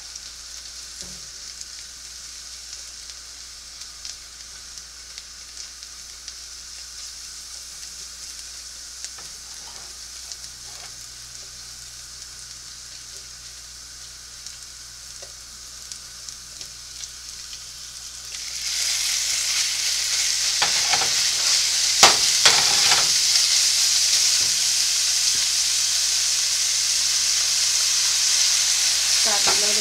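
Minced garlic frying gently in coconut oil in a pan, stirred with a spatula. About two-thirds of the way through, the sizzle jumps suddenly much louder as raw sliced beef goes into the hot oil, with a few knocks of meat and spatula against the pan.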